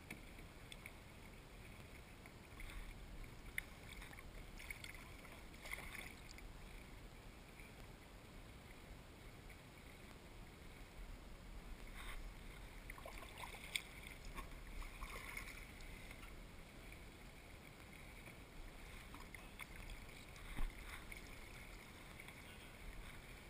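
Quiet kayak paddling: the paddle blades dipping and dripping in calm water, with scattered small splashes and one sharper knock a few seconds before the end.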